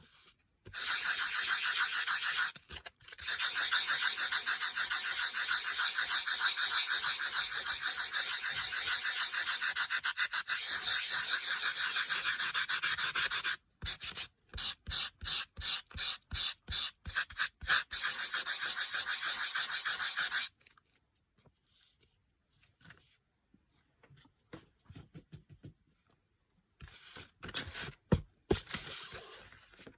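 Sanding block scrubbed back and forth over dry-embossed cardstock, wearing the coloured surface off the raised pattern to show the white core. Continuous rubbing for about thirteen seconds, then a string of short strokes about two a second, then it stops about two-thirds of the way through, leaving only faint taps.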